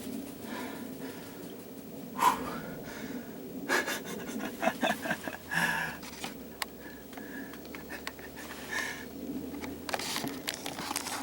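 A person panting and breathing hard, with scattered soft knocks and rustles.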